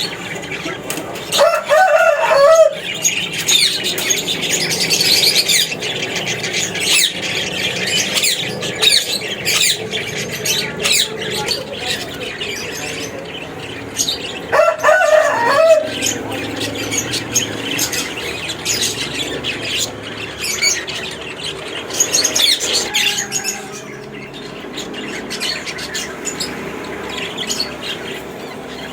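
A colony of cockatiels chirping and whistling all together, with wings flapping and short sharp noises throughout. Two louder squawking calls stand out, about two seconds in and again about fifteen seconds in.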